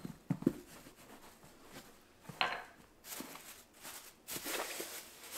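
Hands pressing and smoothing a wet felt hood over a hat block wrapped in a plastic bag: the plastic crinkles and rustles, with a couple of soft knocks near the start and the rustling growing denser in the second half.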